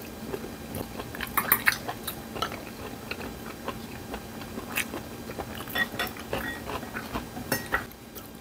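A man chewing and eating close to the microphone, with scattered short clicks of metal chopsticks and a spoon against porcelain bowls and side dishes.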